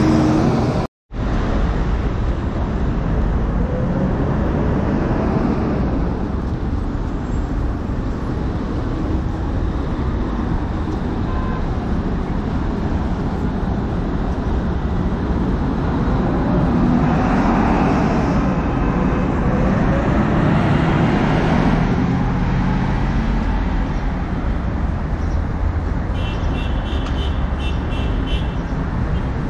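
City road traffic: a steady hum of cars and buses, with one vehicle passing close around the middle. The sound cuts out completely for a moment about a second in.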